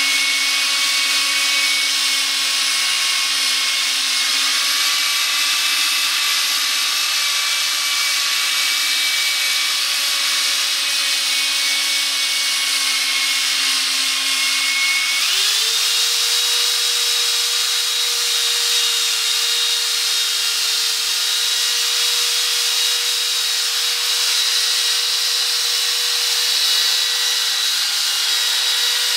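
Corded electric drill spinning a foam polishing pad against a plastic headlight lens, buffing it with rubbing compound. A steady motor whine that steps up in pitch about halfway through as the drill speeds up, then holds.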